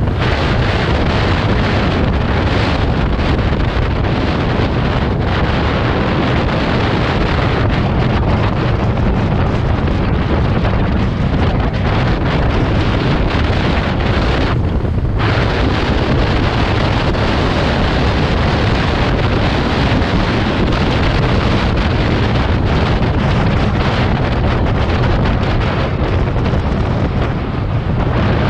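Heavy, steady wind buffeting on the microphone of a camera on a moving vehicle, with a low rumble underneath. The buffeting eases briefly about halfway through.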